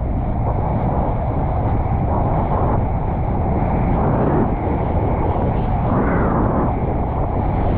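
Strong wind blowing across a GoPro action camera's microphone: a steady, heavy rumble that swells briefly a few times, over the wash of choppy sea water.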